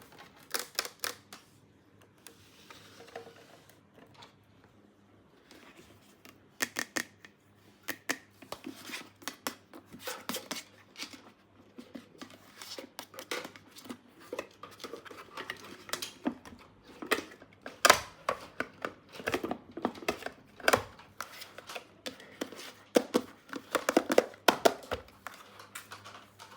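Small plastic toy pieces being handled and set down, making irregular clicks and taps, with occasional rustling of packaging. The taps are sparse for a few seconds, then come thick and fast.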